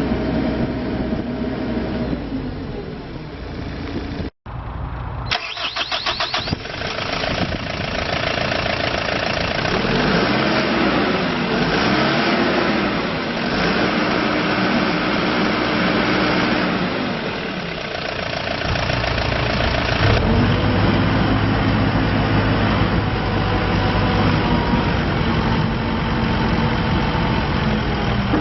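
Volvo BL60B backhoe loader's diesel engine cranked on the starter with a fast, even chatter, catching, then revving up and down a few times before settling into a steady low idle.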